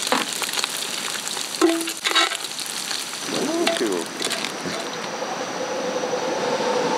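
Steak sizzling and frying in a cast-iron pot over a campfire, broken by a couple of short voice sounds. Near the end a steady droning swells, as howler monkeys begin their dawn calling.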